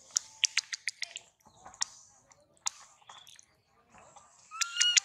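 Baby long-tailed macaque chewing: a quick run of sharp, crisp clicks in the first second, a few more spaced out after, and near the end a short high squeaky call.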